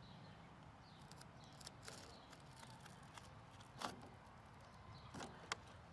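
Near silence: room tone with a few faint scattered clicks and taps, one a little more distinct a little under four seconds in.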